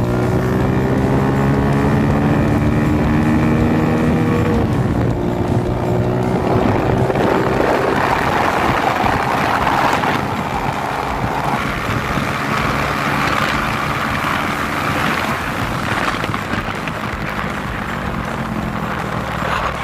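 Suzuki Smash motorcycle's single-cylinder four-stroke engine, breathing through an aftermarket YRS muffler, accelerating hard. Its pitch climbs, drops at a gear change about four and a half seconds in, and climbs again. In the second half wind rushing over the microphone at speed covers most of the engine.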